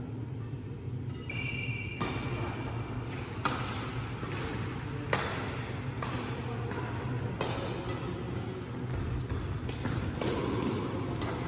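Badminton rally: rackets strike the shuttlecock about nine times, irregularly, roughly a second apart, with sneakers squeaking on the court floor between shots.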